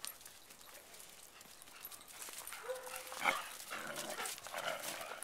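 Dogs at rough play. After a quiet start there is a short, steady whine about halfway through, then a sharp yip and a run of rough, noisy vocal sounds.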